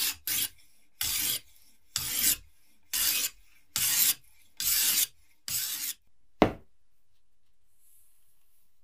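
Rhythmic rasping strokes of a hand-worked abrasive, about one a second and each about half a second long, stopping after about six seconds. A single sharp knock, louder than the strokes, follows half a second later.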